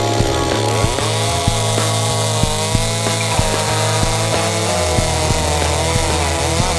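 Stihl MS 250 two-stroke chainsaw cutting red elm into rounds, its pitch rising and falling as it bogs in the cut and revs free, mixed with background music that has a steady beat.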